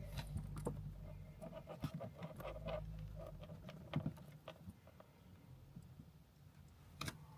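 Faint handling noises of small plastic wiring connectors being squeezed and fitted onto a cable: scattered light clicks and taps, with a sharper click about seven seconds in, over a low hum.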